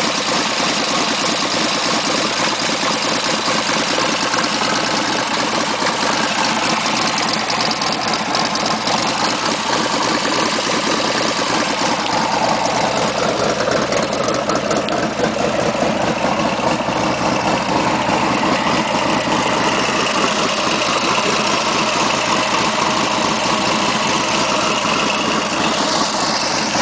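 2007 Harley-Davidson Dyna Street Bob's 103-cubic-inch Twin Cam V-twin with aftermarket cams, idling steadily.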